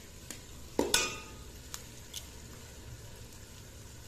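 Eggs being cracked into a metal pot of masala: a few short, sharp taps and cracks of shell, the loudest about a second in.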